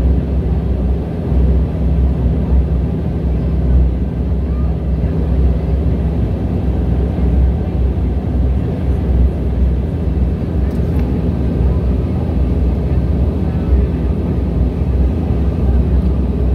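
De Havilland Dash 8 Q400's Pratt & Whitney PW150A turboprop engines running, a loud steady low propeller drone heard from inside the passenger cabin.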